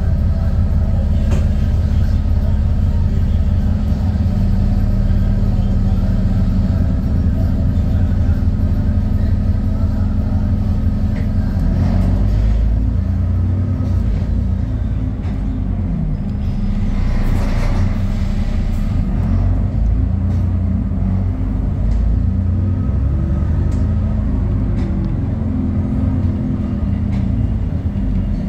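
Diesel engine of an ADL Enviro 400 Trident double-decker bus, heard from inside the lower deck as the bus moves in slow traffic: a steady low drone whose pitch rises and falls as it pulls forward and eases off. A brief rush of noise comes about two-thirds of the way through.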